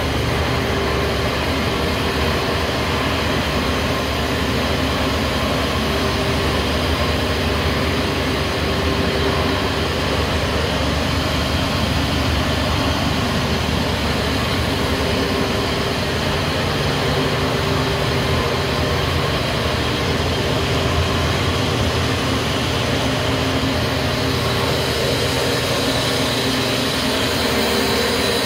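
Plastic film recycling line running, with the LDPE extruder and strand pelletizer machinery giving a steady, unbroken mechanical noise with a low hum.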